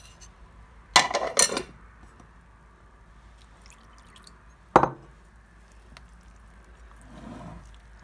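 Clinks of a utensil against a glass mixing bowl: a double clink about a second in and a single sharp one near the middle. Between them, milk is poured into thick cake batter.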